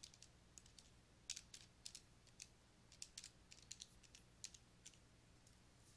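Faint, irregular light clicks of keys being pressed, about a dozen over four seconds, otherwise near silence.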